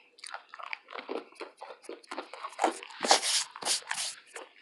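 A person biting and chewing crunchy fried food (fries, tater tots or a fried fish sandwich): a quick run of crunches that gets louder about three seconds in.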